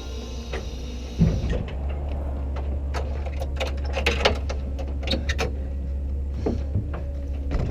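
Scattered metal clicks and knocks as a pole light fixture is closed up by hand, over the steady low drone of a bucket truck's running engine, which gets louder about a second in.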